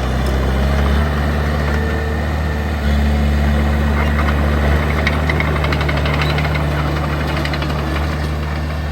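Heavy diesel earthmoving machine's engine running steadily, pulling a little harder from about three seconds in, with a rapid metallic clatter joining it in the second half.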